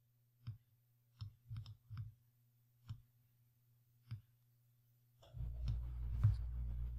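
Computer mouse clicks, about seven of them at uneven intervals, as panels are dragged and resized. About five seconds in, a low steady hum of background noise comes up, with one more click shortly after.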